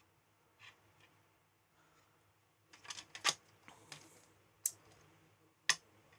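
Omnifixo magnetic PCB grips being handled and set down on a metal base plate, making a scatter of sharp clicks and light knocks. The loudest come about three seconds in and near the end.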